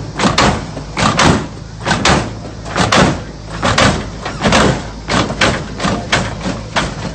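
Lowrider car hopping its front end on hydraulic suspension: a run of sharp bangs, roughly one or two a second, as the hydraulics fire and the car comes up and slams back down.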